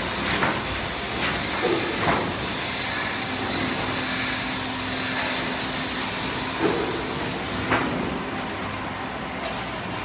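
Roof tile roll forming machine running, its grooved steel rollers pressing painted sheet steel as it feeds through: a steady mechanical noise broken by a handful of sharp clicks and knocks. A low steady hum joins in for a few seconds in the middle.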